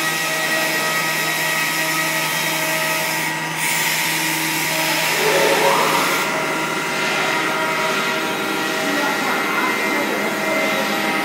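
5-axis CNC wood router running: a steady machine whine with several held tones over a hiss of motor and air noise. About five seconds in, one whine rises in pitch and then holds at the higher note.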